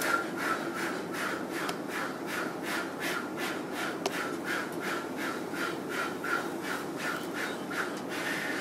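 People doing a diaphragm breathing exercise, pushing air out in short, forceful puffs, about three a second and evenly paced.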